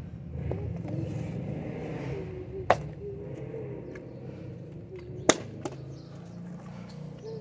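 A few sharp knocks of a plastic bottle being handled in a glazed ceramic plant pot, about a third of the way in and again about two thirds of the way in, with a smaller click right after the second, over a low steady background rumble.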